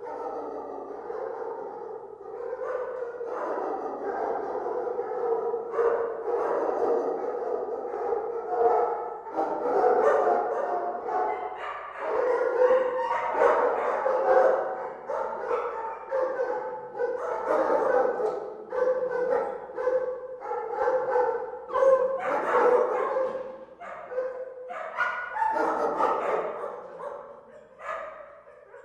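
Many dogs barking and yipping at once in an indoor kennel, their barks overlapping in a constant din.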